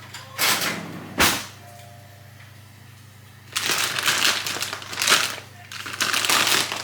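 Kitchen handling sounds over a steady low hum: a brief rustle and a sharp knock in the first second or so, then from about halfway in a few seconds of crinkling and rustling from a packet of raw sugar being handled as it is spooned out.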